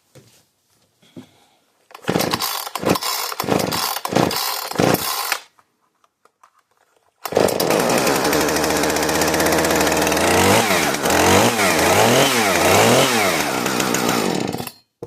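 Husqvarna two-stroke chainsaw cold-starting: the engine fires and runs unevenly in bursts for about three seconds, then stops. It starts again about seven seconds in and runs steadily, is revved up and down four or five times, and is shut off abruptly near the end.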